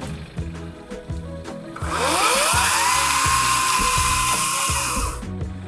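Background music with a steady beat. About two seconds in, a power tool's motor spins up with a rising whine, runs steadily for about three seconds, then stops.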